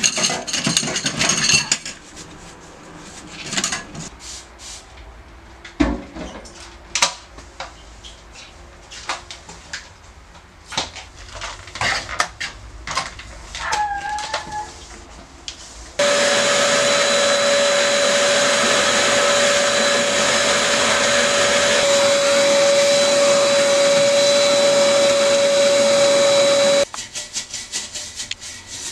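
Dishes and cutlery clattering in a stainless-steel sink, with scattered knocks and a brief squeak. Then an electric household appliance runs steadily with a constant whine for about ten seconds and cuts off, followed by rapid, rhythmic scrubbing strokes of a toilet brush.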